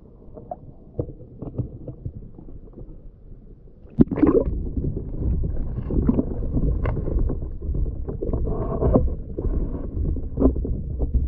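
Water lapping and knocking against a kayak hull at a camera near the waterline. About four seconds in, a sudden knock and jump in level as the camera goes underwater, then a muffled underwater rumble and gurgling with occasional knocks.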